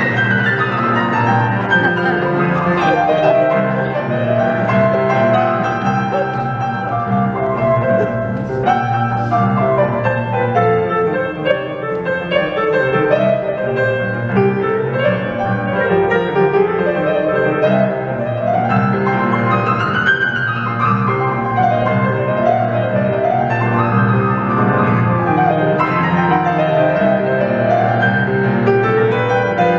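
Grand piano playing an instrumental passage: melodic runs rising and falling over a steady bass.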